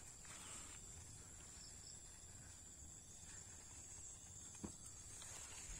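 Near silence: faint, steady, high-pitched insect chirring in the background, with a soft rustle of weeds being pulled about half a second in and one light tick near the end.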